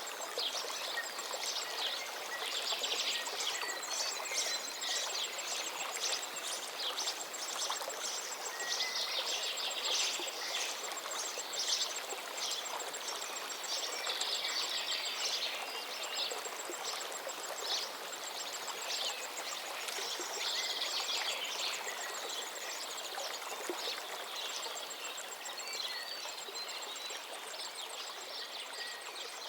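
River water flowing steadily, with birds chirping and singing over it throughout.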